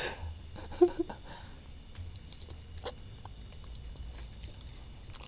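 Soft eating sounds: durian flesh being bitten and sucked off the seeds, with a few small clicks and a brief hum of a voice about a second in. A faint low rumble sits underneath.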